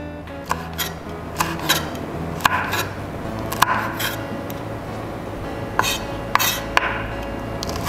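Kitchen knife slicing a red chili lengthwise on a wooden chopping board: about a dozen sharp knocks of the blade hitting the wood, often in quick pairs, with short pauses between.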